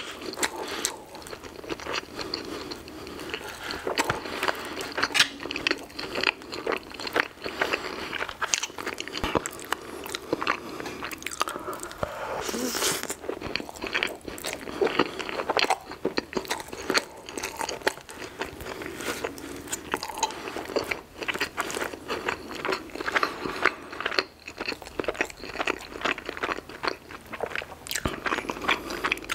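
Close-miked chewing and biting of icing-glazed mini Cinnabon rolls: many small, irregular mouth clicks and smacks.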